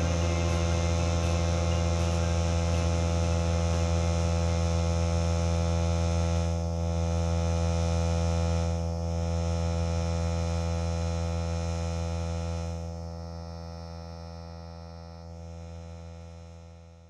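Portable air compressor running with a steady electric hum while a truck tyre is aired up after running aired down on dirt roads; the sound fades away near the end.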